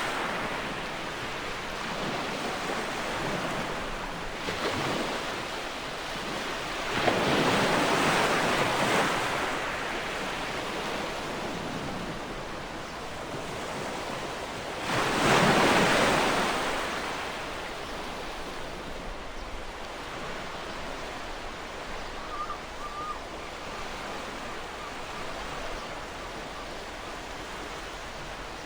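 Ocean waves breaking and washing on a shore, rising in surges every few seconds. The loudest wave breaks about halfway through, then a quieter, steady wash continues.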